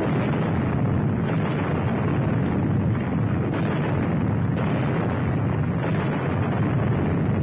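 Aerial bombs exploding: a loud, continuous deep rumble of overlapping blasts, with no single sharp bang standing out.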